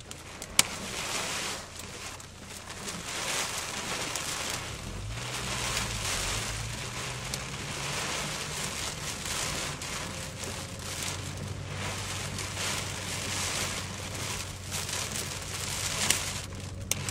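Heavy rain beating on a moving car's roof and windscreen, heard from inside the cabin, with a low engine hum beneath. A single sharp knock sounds about half a second in.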